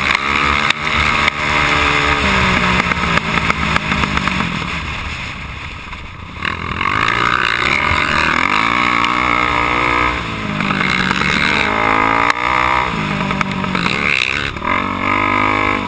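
KTM motocross bike engine heard from a helmet-mounted camera, revving hard as the rider works through the gears. The pitch climbs and drops several times. The engine eases off between about three and six seconds in, then picks up again sharply.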